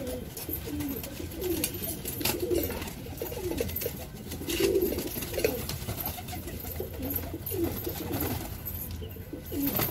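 Domestic pigeons cooing over and over, low warbling coos that rise and fall, loudest about halfway through.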